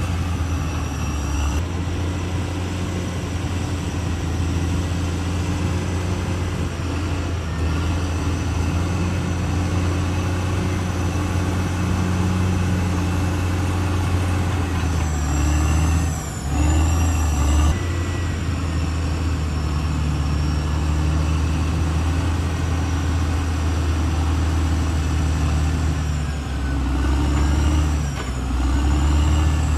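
CAT D6R XL bulldozer's diesel engine running steadily. Its note shifts about halfway through and again near the end, when a faint high, wavering whine rises over it.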